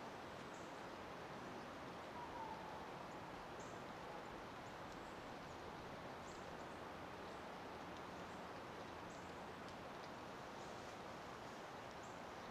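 Faint outdoor ambience: a steady hiss with scattered brief, high-pitched chirps and a single short call a little over two seconds in.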